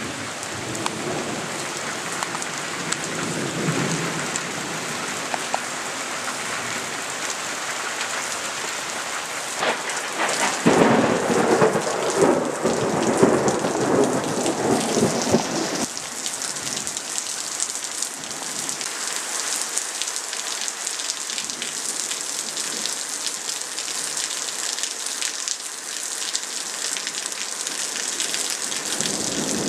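Steady heavy rain falling through a thunderstorm. A faint rumble of thunder comes a few seconds in, then a much louder roll of thunder starts suddenly about ten seconds in and lasts about five seconds before dying back to the rain.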